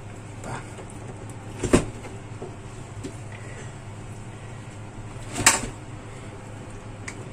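Two sharp knocks about four seconds apart, over a steady low hum.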